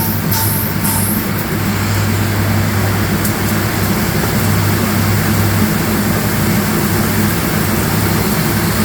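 CNC lathe running steadily while turning a goose call: a constant low motor hum under an even hiss of cutting and machine noise.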